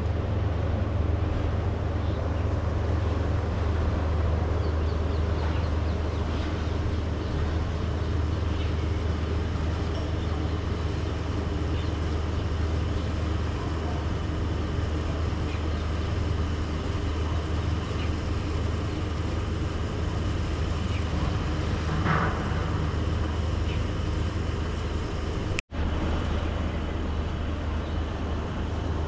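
Steady city traffic noise with a constant low rumble, broken by a sudden momentary dropout near the end.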